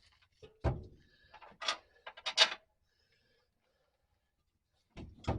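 Metal clanks and scrapes from hand tools and parts while a transmission is fitted to its mounting: a heavy knock about a second in, two harsher scraping clatters, a pause, then sharp knocks near the end.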